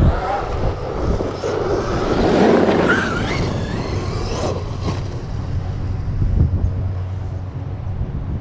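Arrma Outcast 8S EXB RC truck driving over rough off-road ground, its electric motor whining up and down in pitch in the first half, with knocks and clatter from the chassis and tyres.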